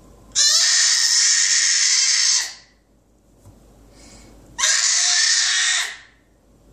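Baby shrieking twice: two loud, high-pitched screeches, the first about two seconds long and the second shorter, near the end.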